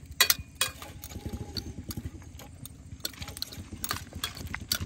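Metal tongs clinking and scraping against a stainless steel cooking pot as vegetables are stirred in it on a campfire grill: a string of irregular sharp clicks, some louder than others, over a steady low rumble.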